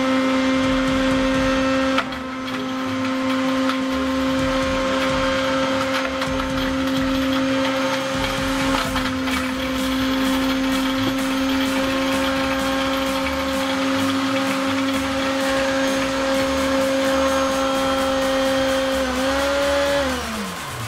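Silvercrest SSDMD 600 blender's 600-watt motor running steadily at speed 3, crushing ice with a steady whine. Near the end the pitch briefly rises, then falls away as the motor is switched off and winds down.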